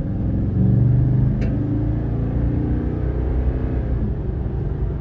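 Toyota Tundra's V8 engine and road rumble heard from inside the cab while driving, the engine note stepping up and climbing as the truck accelerates.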